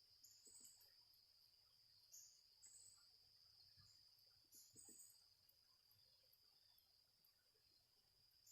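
Near silence with a faint, steady high-pitched insect trill and a few brief, higher chirps over it.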